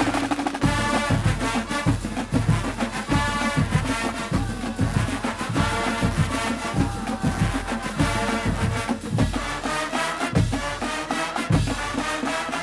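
Marching band playing a brass-and-drum tune: trumpets, trombones and sousaphones over steady strokes on marching bass drums.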